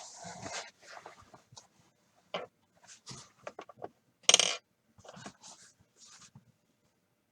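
Cardboard card boxes and their wrapping being handled: short rustles, taps and clicks with gaps between, and one louder scrape or crinkle about four and a half seconds in.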